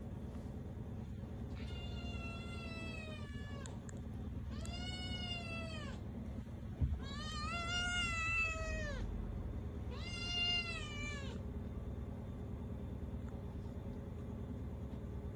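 A domestic cat meowing for its food: four drawn-out meows, each rising and then falling in pitch, with a short thump about halfway through. A steady low hum runs underneath.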